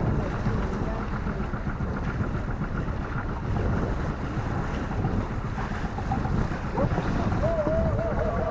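Wind buffeting the microphone over the rush of water along the hull of a sailboat under way, a steady rumbling noise. A voice comes in briefly near the end.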